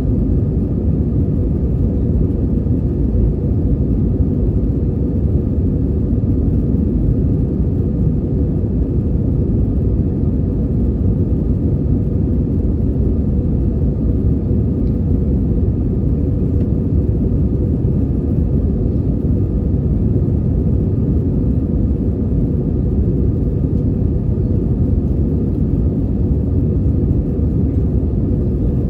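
Airbus A320 cabin noise during the climb, heard from a window seat by the wing: a steady low rumble of engines and airflow with a faint hum over it.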